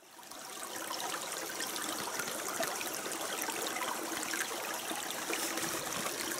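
Running water: a steady trickling hiss with fine crackles, fading in from silence over the first second.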